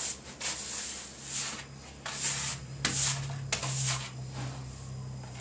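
Hand brush sweeping scattered trash across a hard floor into a dustpan, with a quick bristly swish about every half second.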